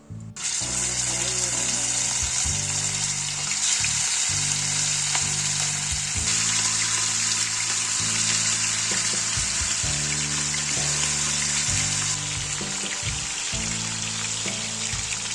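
Food frying in hot oil, sizzling steadily; the sizzle starts suddenly about half a second in. Background music plays underneath.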